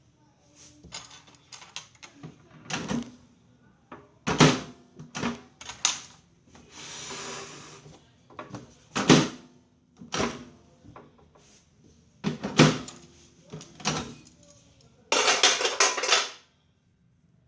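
Hard parts being handled and knocked together, likely during work on a microwave oven: an uneven series of clicks and knocks, with a short scraping noise about seven seconds in and a louder, longer noisy stretch near the end.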